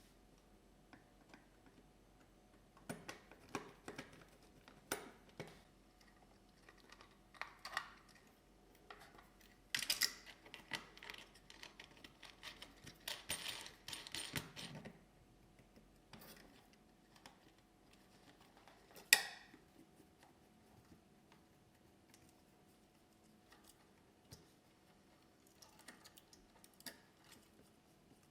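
Scattered clicks and light clattering of small hard objects being handled, busiest in the first half, with one sharp knock a little past two-thirds of the way through. A faint steady hum runs underneath.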